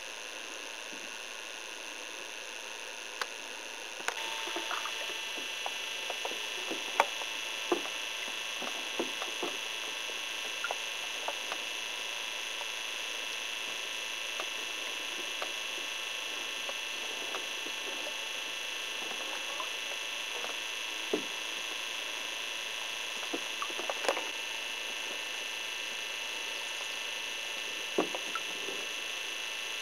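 Steady hiss with faint, steady high tones, getting a little louder about four seconds in, dotted with small scattered clicks and ticks.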